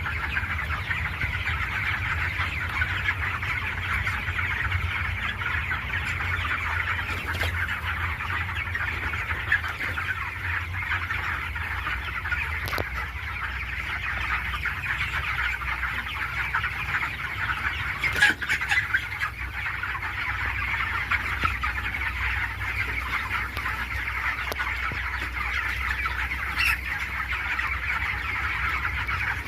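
A large flock of chickens clucking and cheeping without pause, many birds at once in a dense chorus, over a steady low hum.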